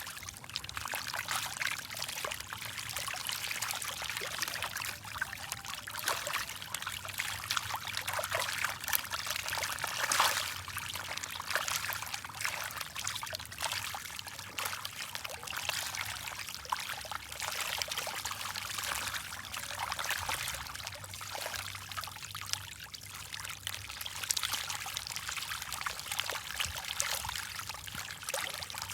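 Continuous water splashing and trickling, made up of many small splashes, with one louder splash about ten seconds in.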